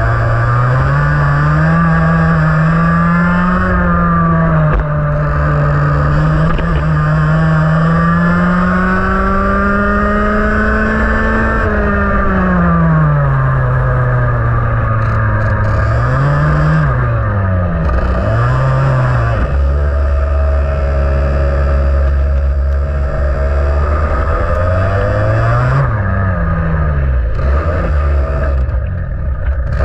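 IAME X30 125cc two-stroke TaG kart engine under load. The pitch climbs steadily along the straights and drops sharply several times as the kart brakes for corners, then picks up again.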